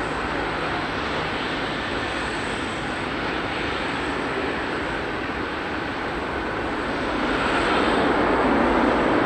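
Jet engines of a Hawaiian Airlines Airbus A330 as it lands and rolls out, heard from some distance as a steady rushing roar. The roar grows louder about seven seconds in.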